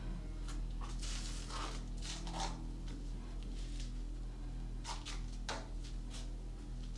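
Rustling and a few light clicks and knocks of household things being handled, coming at uneven moments about a second in, around two seconds, and again near five to six seconds, over a steady low hum.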